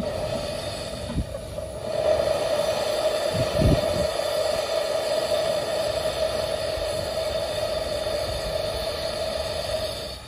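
Miniature one-third-scale steam locomotive standing at the platform, giving off a steady steam noise with a held mid-pitched tone and a few low thumps about one and three and a half seconds in. The sound cuts off suddenly at the very end.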